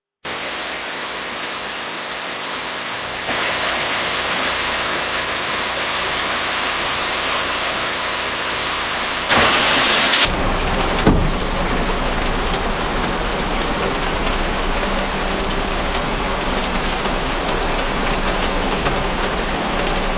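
Rain hitting a window pane: a steady hiss of many drops. It is made of two recordings back to back, with a brief dropout at the very start, a step louder a few seconds in, and a short louder surge just before the change at about ten seconds. The second recording has a steady low rumble under the rain.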